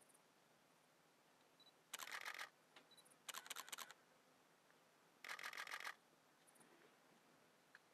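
Camera shutter firing in three short bursts of rapid clicks, each about half a second long, the first about two seconds in and the last a little after five seconds.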